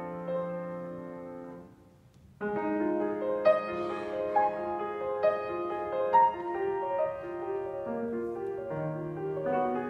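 Grand piano played solo. A held chord fades away, and after a short pause about two seconds in, the playing resumes with a flowing run of many quick notes.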